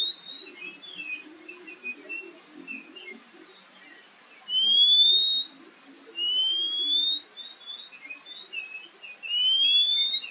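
Oriental magpie-robin singing: three long, clear whistles, each rising in pitch over about a second, with soft short chirps between them.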